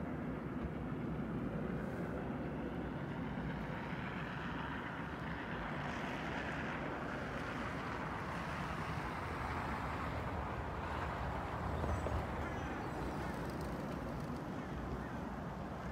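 Road traffic ambience: a steady hiss of car tyres and engines on a winter road, swelling and fading as vehicles pass.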